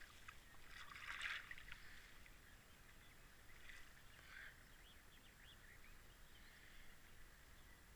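Near silence: quiet lakeside ambience with a short rustling burst about a second in and a few faint high chirps a few seconds later.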